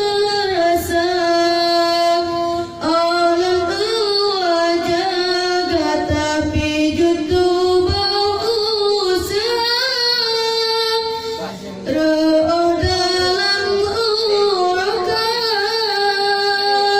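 A single high voice singing long, ornamented melodic lines with held, wavering notes, pausing briefly for breath about three seconds in and again near twelve seconds.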